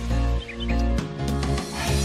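Background music with a steady beat and bass notes.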